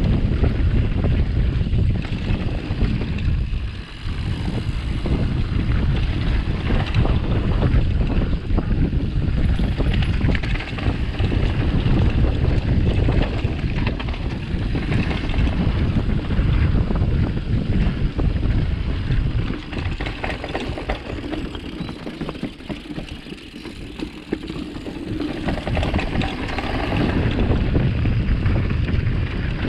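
Mountain bike descending an enduro trail: wind buffeting the microphone over tyre rumble and a constant quick clatter of knocks and rattles from the bike on rough ground. The noise eases for a few seconds about two-thirds through, then picks up again.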